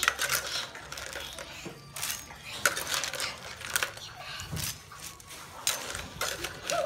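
Stainless slotted ladle clinking and scraping against a metal wok and a mesh strainer as fried crab claws are scooped and transferred, the hard shells clattering. The sharp metallic clinks come irregularly, about one every half second to second.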